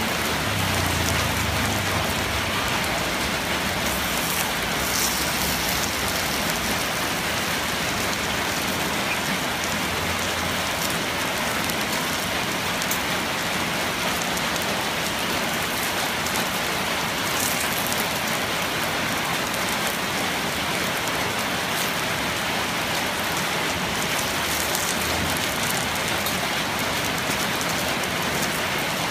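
Steady sizzling of rice-flour and coconut batter frying in the wells of a cast-iron nom kruk pan over a wood fire, a dense even hiss with a few faint crackles.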